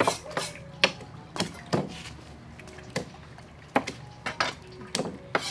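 Kitchen knife chopping greens on a round wooden cutting board: about ten sharp knocks at an uneven pace.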